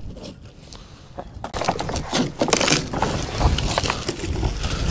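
Rotten wood being scraped and prised out of a wooden boat's old beam shelf with a hand tool: a dense run of crackling, splintering scrapes that starts about a second and a half in. A low rumble joins in past the halfway point.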